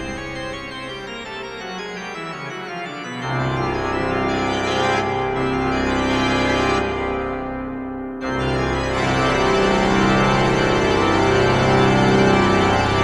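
Organ playing loud sustained chords. Deep pedal bass comes in about three seconds in, and about eight seconds in a fuller, louder chord begins and is held.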